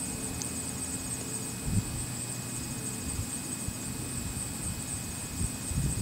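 Outdoor ambience with no siren sounding: wind rumbling on the microphone over a steady, high-pitched insect buzz.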